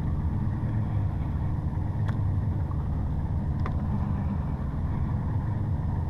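Boat motor idling with a steady low hum, with a couple of faint light clicks over it.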